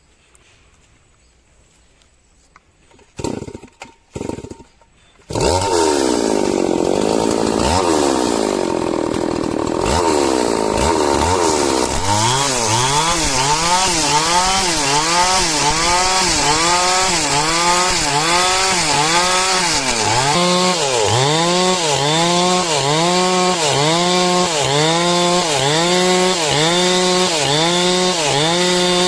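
Stihl chainsaw: after a few short bursts it starts about five seconds in and runs loud, sawing lengthwise through coconut-palm wood to cut a beam. Its engine pitch rises and falls over and over, about once a second, as the bar bites into the log and eases off.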